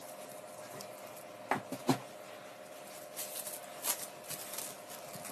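Dough being handled in a glass bowl: two light knocks against the bowl about a second and a half in, then soft scattered crackles, over a faint steady hum.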